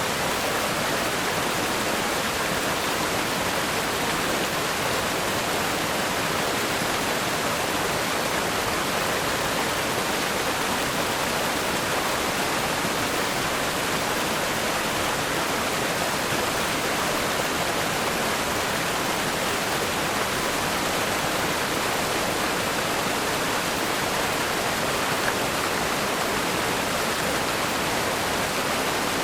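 Fast river rapids rushing over rocks: a steady, unbroken wash of water noise, bright and hissy with little deep rumble.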